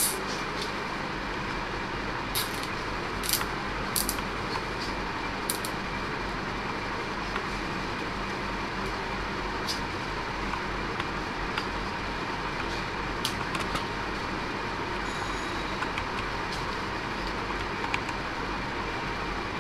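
A steady background hum and hiss, with scattered single sharp clicks and taps from plastic cable ties and a plastic bicycle light being handled and fitted to a handlebar.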